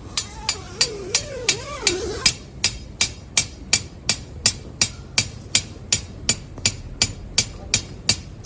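A steady run of sharp knocks, about three a second, like hammer blows on a hard surface, continuing throughout without a break.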